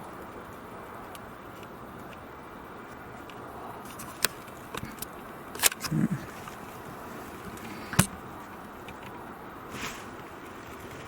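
Outdoor background noise with a few sharp clicks or snaps scattered through it, the loudest about eight seconds in.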